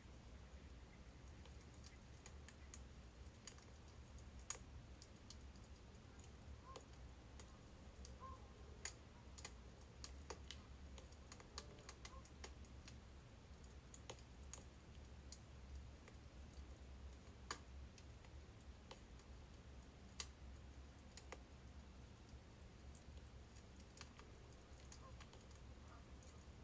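Faint crackling of burning birch firewood: irregular sharp pops and ticks, a few louder snaps among them, over a steady low hum.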